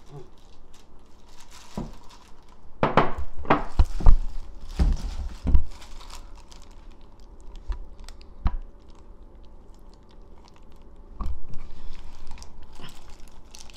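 Plastic-gloved hands handling wet seasoned seaweed into a dish: crinkling of the plastic glove and soft wet squishing, with several sharp knocks between about 3 and 6 seconds in. Near the end a steel mixing bowl is tipped to pour the seasoning liquid over the seaweed.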